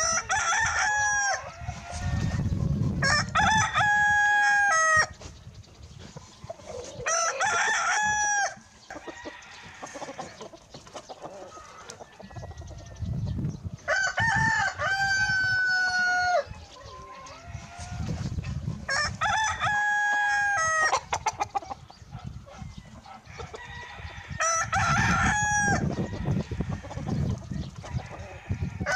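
Pavlovskaya roosters crowing in turn: about six long crows a few seconds apart, each ending on a falling slide.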